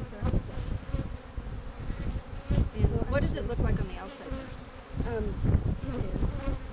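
Honey bees buzzing around an opened hive, with single bees' hums rising and falling as they fly close past the microphone.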